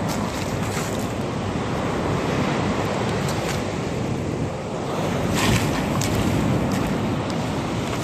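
Surf washing on the shore, with wind buffeting the microphone, and a couple of brief crackles about three and a half and five and a half seconds in.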